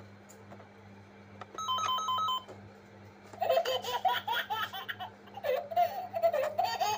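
A short electronic ringing beep, like a phone or gadget, then a person laughing in quick bursts.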